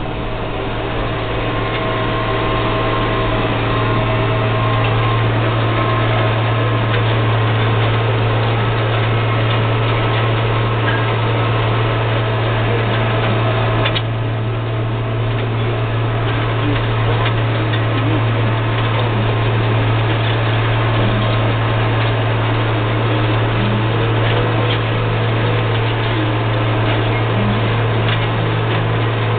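SAME Buffalo 130 tractor's turbocharged diesel engine, fitted with an M&W turbo, running steadily under load while pulling a chisel plow, heard from inside the cab with a deep steady hum.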